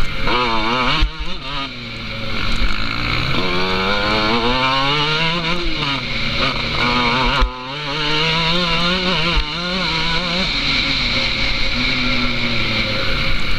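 Mountain bike's knobbly tyres humming on asphalt at speed, a buzzing drone that rises and falls in pitch as the speed changes, with a steady hiss of wind and road noise.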